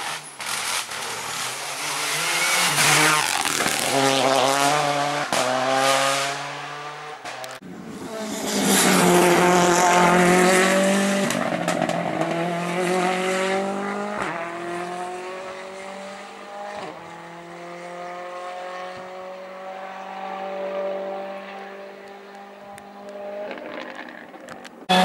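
Rally car engines at full throttle, changing gear several times in quick succession. One car passes loudly, then its steady engine note fades slowly as it draws away.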